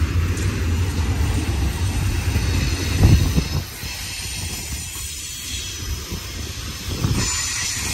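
Double-stack container train's well cars rolling past, a steady rumble of wheels on rail. A louder thud about three seconds in, then the rumble eases a little.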